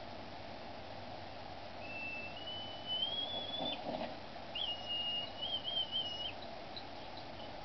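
Two long high-pitched whistles over a steady hum. The first climbs in small steps about two seconds in, and the second holds level and then wavers, just after a soft thump near the middle.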